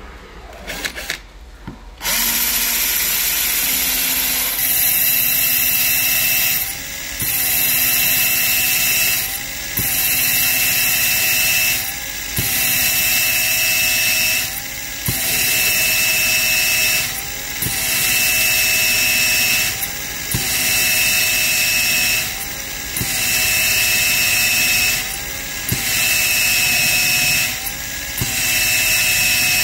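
Cordless drill running in a drill-guide stand, turning a core bit into a water-flooded plate. It starts about two seconds in with a steady whine. The whine briefly sags in pitch and loudness and picks back up about every two and a half seconds.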